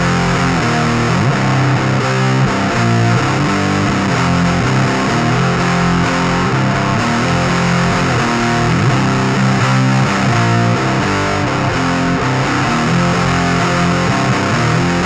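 Heavily distorted electric guitar riff, an Epiphone SG tuned to drop C on its bridge pickup, played through a vintage Sunn Beta Lead amplifier head. Low, sustained chords play continuously.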